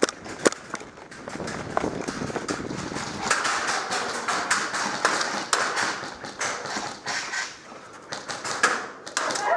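Hurried footsteps on concrete and gear clatter, then scattered sharp taps and clicks from an airsoft skirmish.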